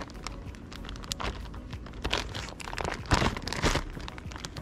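Plastic Ziploc bag crinkling and rustling as hands squeeze and press it shut. Irregular crackles, loudest about three seconds in.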